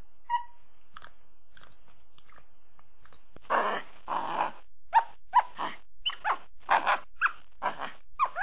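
Capuchin monkey calls: a few short, high squeaks and chirps, then, from about three and a half seconds in, a quick run of about a dozen harsh, raspy calls.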